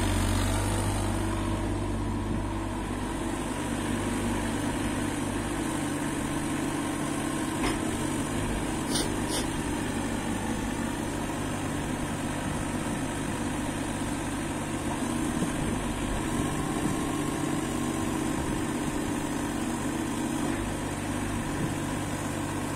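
JCB 8026 CTS mini excavator's diesel engine running steadily while the machine works its hydraulics and slews. The low engine note eases about two seconds in, and a couple of short sharp clicks come near the middle.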